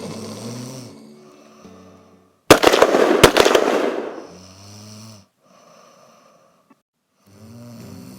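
A sleeping person snoring: low, buzzing snores, with one very loud, rattling snore about two and a half seconds in that lasts over a second.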